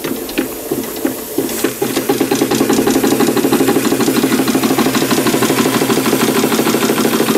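Märklin 4147/11 live-steam ship's engine running and driving a dynamo, its exhaust chuffing and mechanism clattering in a fast, even rhythm. About a second and a half in it picks up speed and gets louder, then runs on steadily faster.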